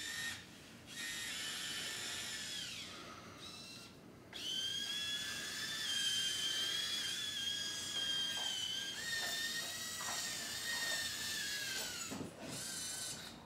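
Hobby servo motors in a robot's arms whining as they run through a pre-set movement sequence. Several stretches of high-pitched gear whine, each lasting a few seconds, come with short gaps between them, and some drop in pitch as the motion eases off.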